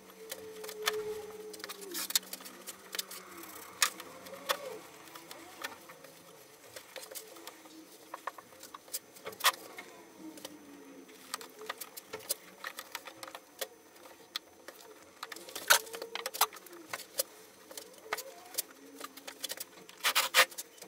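Handling noise of a cut steel propane-bottle shell being lined with ceramic fibre blanket and fitted back together: irregular clicks, taps and knocks of thin sheet steel with soft rustling of the fibre and a few faint squeaks. A cluster of louder knocks near the end as a steel block is set on top.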